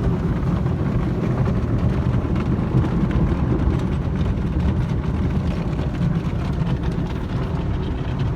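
Automatic car wash at work, heard from inside the car: a steady, low rush of water spray and machinery over the body, with fine spattering.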